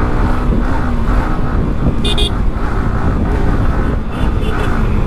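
Motorcycle running on the road, its engine rumble mixed with wind noise. A quick double horn beep sounds about two seconds in, with fainter beeps a little after four seconds.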